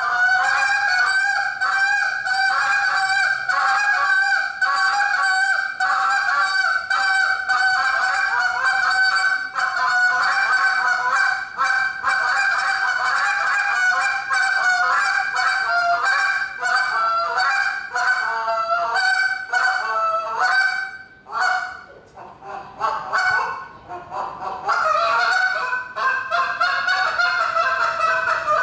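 Hand-held goose call blown by a contest caller in a fast, unbroken run of honks and clucks. About three-quarters through, it thins to a few scattered notes for a few seconds, then picks up again into a fast run near the end.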